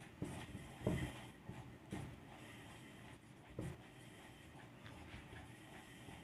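Marker pen writing on a whiteboard: faint strokes against the board, a few louder ones within the first four seconds.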